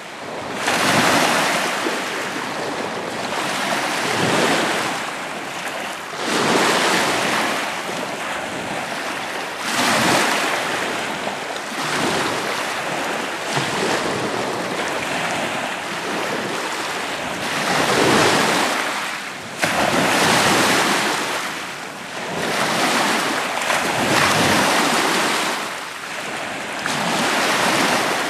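Lake waves washing ashore, the rush swelling and easing every three to four seconds, with wind rumbling on the microphone.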